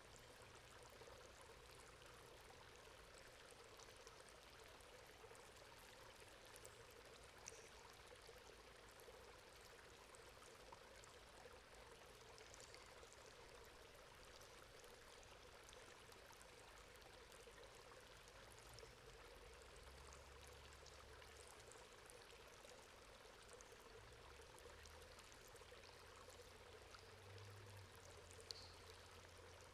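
Faint, steady running water pouring through a metal grate, with two brief sharp ticks in the middle and near the end.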